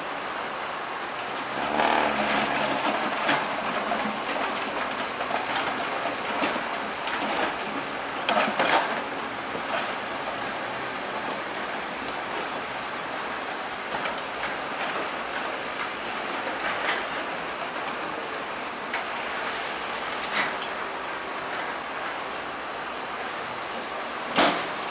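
Bulldozer at work: engine running under a steady clatter of steel crawler tracks with a faint high squeal, broken by a few sharp metal knocks, the loudest near the end.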